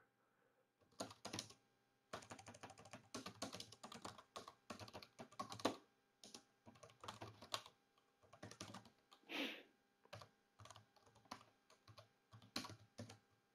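Computer keyboard typing: quiet, irregular keystrokes in quick runs with short pauses, starting about a second in.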